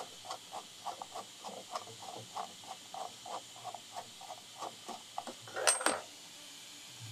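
Screwdriver turning a 3D printer's bed-levelling screw, a steady series of short squeaky clicks about three a second, as the screw is backed out to swap the bed springs for spacers. About five and a half seconds in, a brief louder clatter as the tool comes away.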